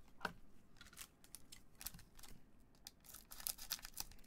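Panini Court Kings basketball card pack wrapper crinkling as it is handled, then scissors snipping into the wrapper to open it, a quick cluster of faint clicks and crackles about three seconds in.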